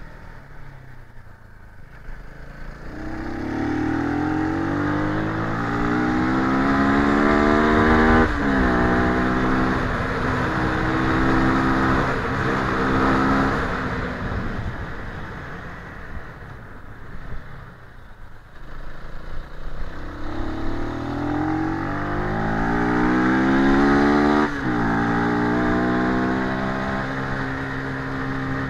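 CFMoto 300NK's single-cylinder engine accelerating hard under a rider, revs rising to an upshift that drops the pitch about eight seconds in. It holds, then the throttle rolls off and the engine fades around the middle, then it pulls up through the revs again to a second upshift near the end.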